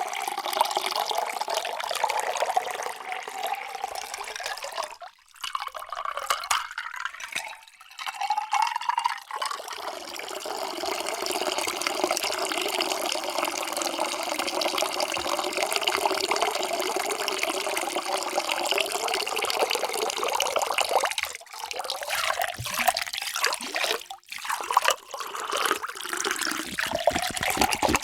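Water poured into a drinking vessel in several pours with short breaks between them. The tone of the pour rises in pitch as the vessel fills.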